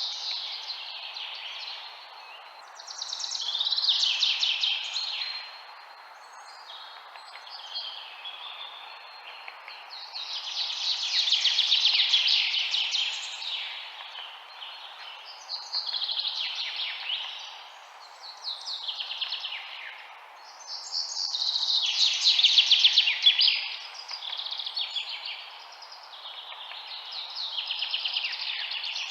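Songbirds singing in repeated bursts of rapid, high chirping notes every few seconds, each burst lasting one to three seconds, over a steady soft background hiss.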